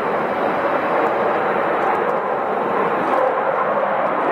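Lockheed Martin F-22A Raptor's twin Pratt & Whitney F119 turbofans running as the jet taxis: a steady, even jet engine noise.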